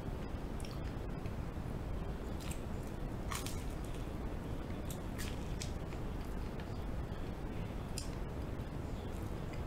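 A person biting and chewing bread, with a few short, crisp crunches scattered through, over a steady low background hiss.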